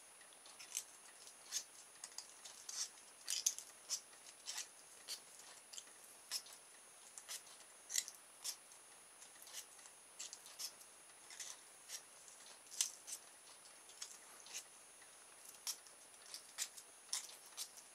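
Folded sandpaper rubbing along the ends of thin coated wire to strip off the insulation: a faint series of short, irregular scratching strokes.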